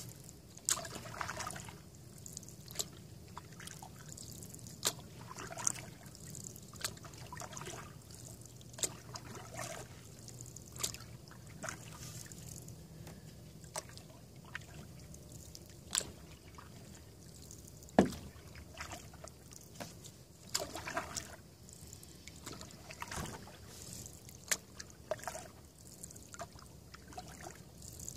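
Canoe paddle strokes in calm water: a swish and splash with each dip and pull, about every one to two seconds, and water trickling off the blade between strokes. One sharp knock about two-thirds of the way through.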